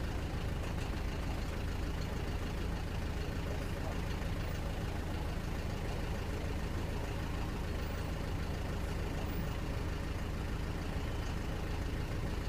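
Box truck's engine idling steadily, heard from inside the cab as an even low hum.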